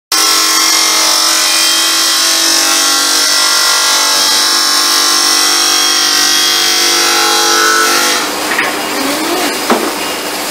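Bench-mounted electric hose-cutting machine running, its cutting wheel spinning as rubber hose is cut, with a steady high whine made of several steady tones. After about eight seconds the sound turns rougher and a little quieter, with brief rising and falling pitch sweeps near the end.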